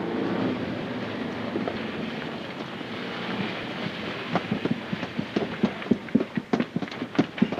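A steady rushing noise, then from about halfway through a quickening run of short, sharp knocks or pops, several a second.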